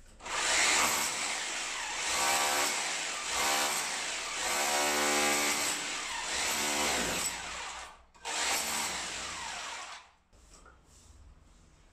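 Corded electric hammer drill with a chisel bit chipping a groove into a plastered masonry wall, a harsh buzzing rattle that stops briefly about eight seconds in, runs again for about two seconds and then cuts off.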